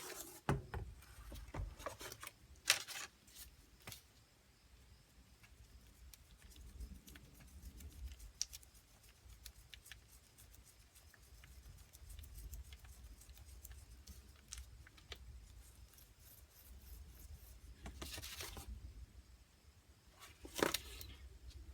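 Faint handling sounds of working the two-part epoxy: scattered small clicks and scraping, with a few short louder rasps about three seconds in and twice near the end.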